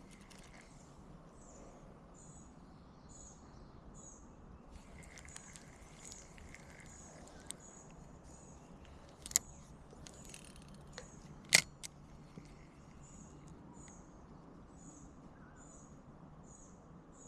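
Outdoor ambience with a short, high chirp repeating about once a second. Two sharp clicks come about halfway through.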